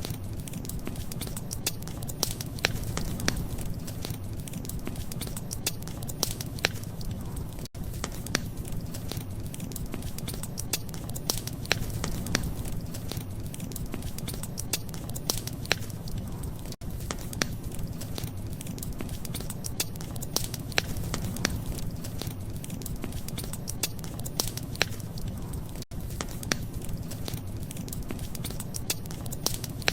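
Wood fire crackling, with frequent sharp pops and snaps over a low steady rush. Brief dips in level come about every nine seconds.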